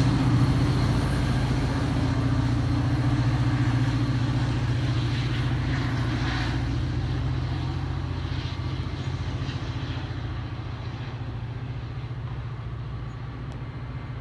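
NJ Transit commuter train pulling away from the station: a steady low hum with rolling rail noise that slowly fades as the train recedes.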